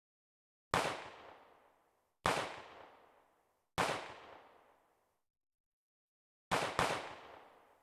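Gunshots: three single shots about a second and a half apart, then two shots in quick succession near the end, each trailing off in a long echo lasting about a second.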